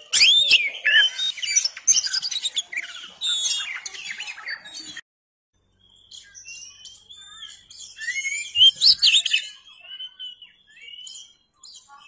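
Oriental magpie-robin (kacer) singing a rapid, varied run of gliding whistles and chirps. The song breaks off about five seconds in and, after a second of silence, resumes as thinner, more spaced phrases with a loud flourish near the end.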